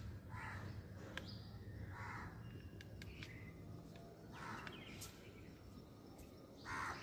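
Crows cawing faintly, four harsh caws spread over the seconds, over a low steady outdoor background noise.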